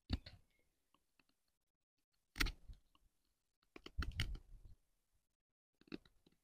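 J&V Cantero bushcraft knife shaving thin cuts off a wooden stick: a few short, faint scrapes of the blade on the wood, the firmest about two and a half seconds in and a quick run of strokes about four seconds in.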